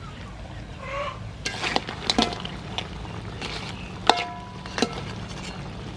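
Spatula knocking and scraping against a metal wok as mud crab pieces in coconut milk sauce are stirred: a series of sharp clinks, the loudest about four seconds in, ringing briefly.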